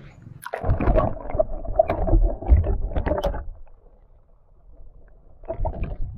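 Water splashing and gurgling against a camera microphone as the camera is dipped under the river surface: a long spell of splashing and bubbling with sharp clicks, a quieter lull, then a shorter splash near the end as it comes back up.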